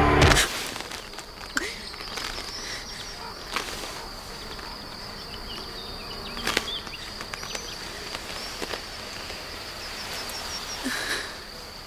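Outdoor ambience: a steady high insect buzz with a few small chirps, and several sharp knocks spaced a second or two apart, the loudest about six and a half seconds in. Music cuts off just after the start.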